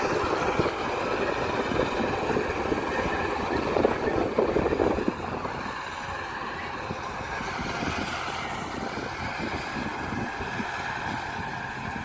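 Preet combine harvester at work in standing wheat: its diesel engine and threshing machinery make a steady drone. The drone grows fainter after about five seconds as the machine moves away.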